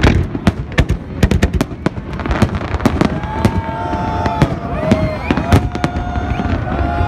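Aerial fireworks bursting overhead, a rapid run of sharp bangs and crackles. From about three seconds in, held voices of onlookers join in over the bangs.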